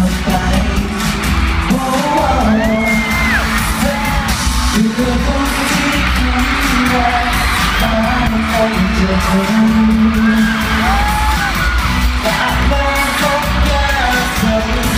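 Live pop song with a man singing over the band, heard from among the audience in an arena, with fans yelling and whooping over it.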